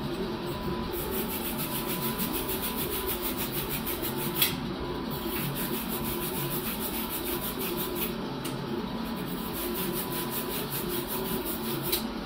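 Wire fitting brush scrubbing the inside of a copper fitting in a fast, even scratching rhythm, with a couple of light knocks. It is cleaning the copper bright so the flux and solder take.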